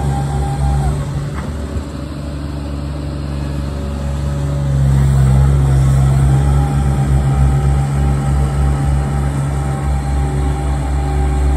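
Small ride-on tandem drum roller's engine running steadily as the machine drives slowly over grass, with a strong low hum that grows louder about halfway through.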